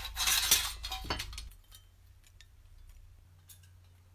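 Rusty sheet-metal locomotive parts clinking and clattering against each other as they are handled, loudest in about the first second and a half, then only a few faint ticks.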